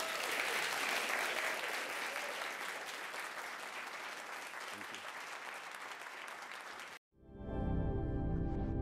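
Audience applauding. The applause cuts off abruptly about seven seconds in, and outro music with held, sustained notes begins.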